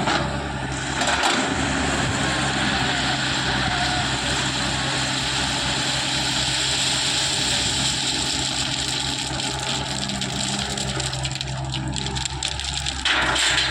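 Diesel engine of heavy machinery running steadily under a broad mechanical noise, with a sudden change in the sound about 13 seconds in.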